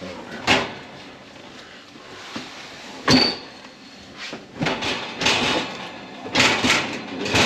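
Siemens built-in oven being pushed back into its kitchen housing, its metal casing knocking and scraping against the cabinet: a sharp knock, then a loud clunk with a brief ring about three seconds in, then a run of scraping knocks.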